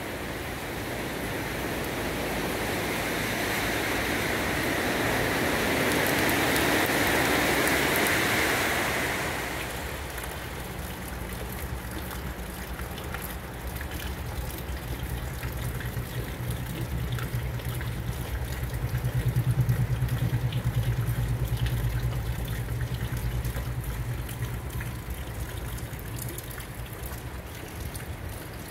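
A rushing noise swells for about nine seconds and then drops away suddenly. It is followed by a low, steady engine hum that grows loudest about two-thirds of the way through and then eases off.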